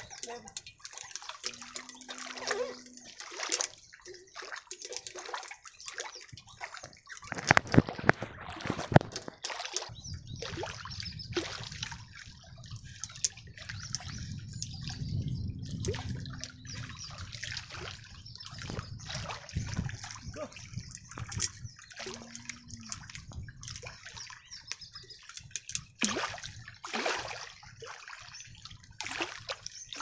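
Water splashing and sloshing in irregular bursts, with the loudest splashes about seven to nine seconds in.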